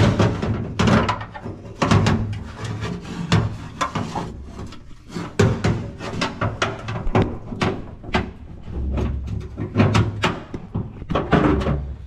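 Irregular knocks, clunks and rattles of hands handling the seat-belt harness and metal parts inside a dirt late model race car's cockpit, close to the microphone.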